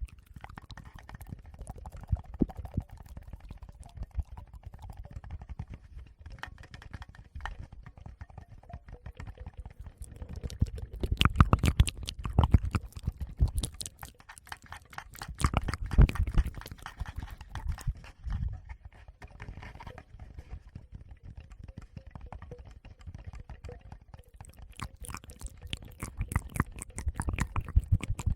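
Close-up ASMR sounds into a Tascam recorder's microphones: fingers touching and rubbing the mics with low muffled thumps, mixed with wet mouth clicks. The thumps come in heavier spells about a third of the way in, around the middle and near the end.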